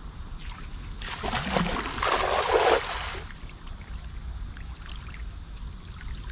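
A large cast net thrown and hitting the water: a rushing splash that builds about a second in, is loudest between two and three seconds in as the net's weighted rim lands across the surface, and stops a little after three seconds.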